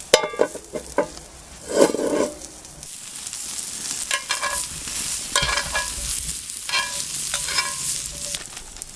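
Brussels sprouts sizzling in a hot frying pan, with a few ringing metal clinks and scrapes against the pan spread through it.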